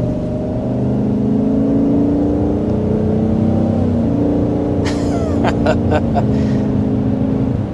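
6.2-litre V8 of a 2024 GMC Sierra Denali Ultimate pickup accelerating through its active exhaust, heard from inside the cabin. The engine note climbs steadily, drops about four seconds in and again near the end as the 10-speed automatic upshifts, then climbs again.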